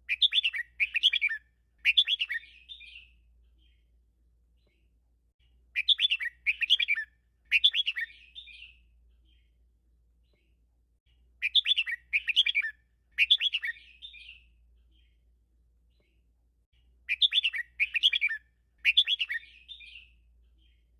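Red-whiskered bulbul singing the same short song phrase four times, about every five and a half seconds. Each phrase is three quick, loud bursts of chirping notes followed by a softer trailing warble.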